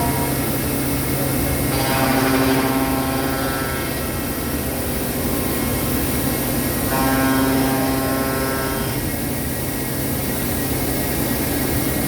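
Mecal MC304 Ariel CNC machining centre running with a steady hum. Twice, about two seconds in and again about seven seconds in, a machine whine of several tones joins it for about two seconds and then fades.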